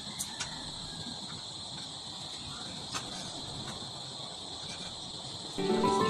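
Crickets chirping in a steady high-pitched chorus, with a few faint clicks in the first seconds. Gentle music comes in near the end.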